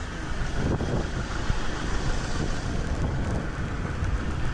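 Wind buffeting the microphone in gusts, a dense low rumbling rush.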